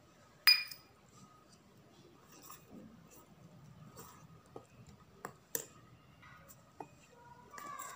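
A sharp metallic clink about half a second in, then scattered light clicks and scrapes of a wire whisk against a stainless steel bowl while milk is whisked into cake batter.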